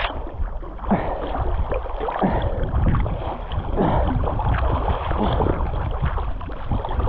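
Lake water sloshing and splashing against a camera held at the surface while people swim, with arm strokes breaking the water. Wind buffets the microphone, adding a heavy, uneven low rumble.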